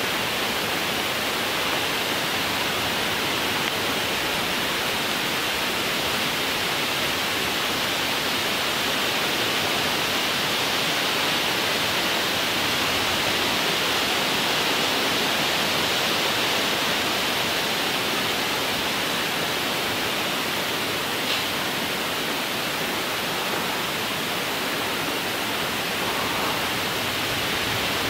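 Steady wind through the treetops, an even rustling hiss that holds level throughout, with one faint click about two-thirds of the way through.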